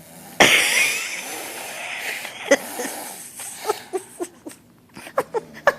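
A mock snore: one loud, breathy rasp that starts suddenly and fades over about a second and a half, then a few short, clipped vocal sounds.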